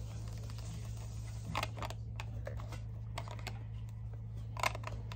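Manual Logan lathe running with a steady low hum, with light, irregular clicks and taps over it. The sharpest clicks come about a second and a half in and near the end.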